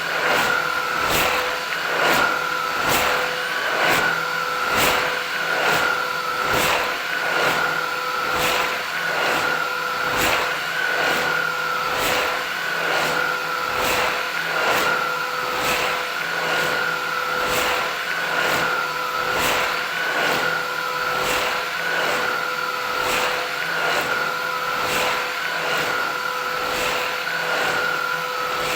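Philips 8000 series vacuum cleaner running steadily: a continuous motor whine, with an even pulsing about twice a second.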